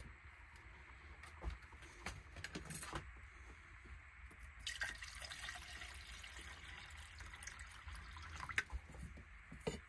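Water poured from a plastic bottle into an aluminium camping pot, a steady trickle that starts about halfway through and runs for several seconds. Before it come a few light knocks of handling.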